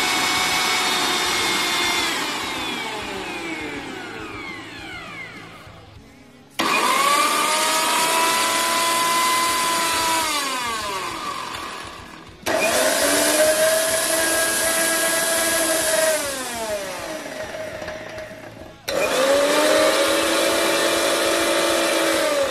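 Bajaj Platini PX7 500-watt mixer grinder motor running empty with a steady whine. It is switched off and spins down in a falling whine, then started again three times, the later runs with the empty chutney jar and liquid jar fitted.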